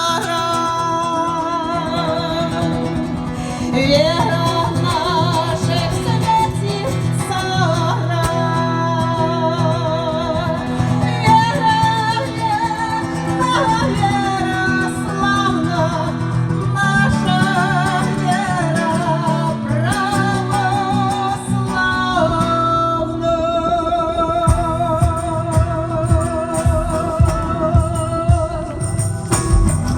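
A song: a voice singing with vibrato over steady instrumental accompaniment. In the last few seconds, sharp strikes in a quick rhythm join in.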